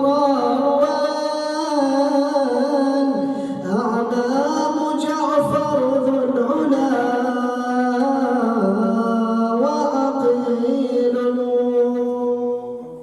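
A male reciter chanting Arabic devotional poetry in long, drawn-out melodic lines. His voice holds notes and slides between pitches, without word-by-word speech.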